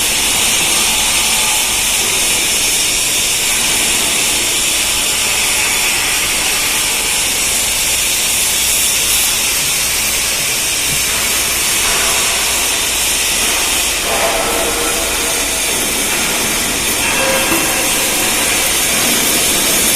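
Automatic submerged-arc pipe welding machine running during cap welding of a P91 pipe: a steady, even hiss with a low hum underneath.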